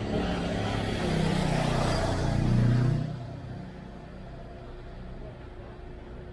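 A motor vehicle passing close by, its engine and tyres loud for about three seconds and rising slightly in pitch, then dropping away to a low background hum.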